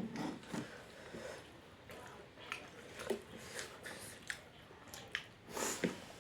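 Close-up mukbang eating sounds: chewing and lip smacks on a mouthful of fish curry, with irregular short wet clicks and a longer wet smack near the end.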